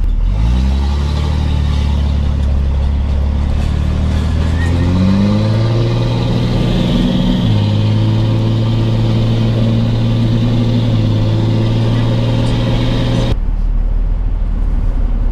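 A vehicle's engine accelerating through the gears: its pitch climbs, drops at a gear change, climbs again, shifts once more, then holds steady at cruising speed. Near the end the sound cuts abruptly to a low steady hum.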